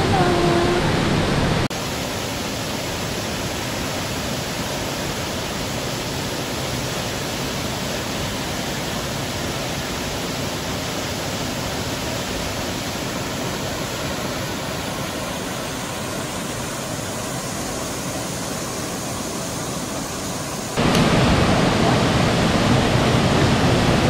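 Steady rushing of a waterfall in a mountain gorge, an even roar of falling water with no pitch to it. The level drops abruptly about two seconds in and jumps back up about three seconds before the end.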